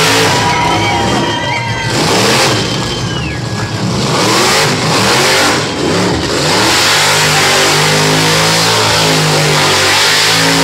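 Car engine revving hard while the car spins its wheels in a smoky burnout, with rising and falling revs and high tyre squeal in the first few seconds, then the engine held at steady high revs in the second half.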